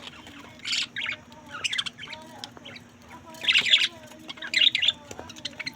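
Budgerigars chirping and squawking in short, irregular bursts, loudest around three and a half seconds in, over a faint steady low hum.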